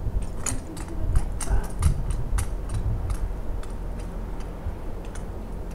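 Irregular sharp clicks and ticks, several a second for the first few seconds and then sparser, over a steady low rumble.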